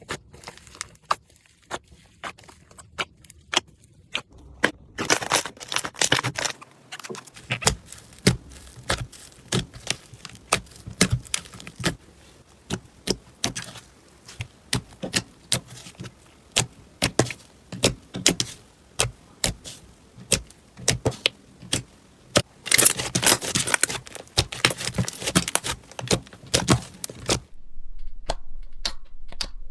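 Crunchy slime being squeezed and worked by hand, giving a fast run of sharp clicks and pops, with thicker stretches of crackling about five seconds in and again a little past twenty seconds.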